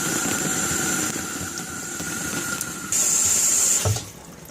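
Water running through a faulty bathroom tap, heard from under the sink: a steady hiss with a faint whistle. It gets louder for the last second, then cuts off sharply about four seconds in.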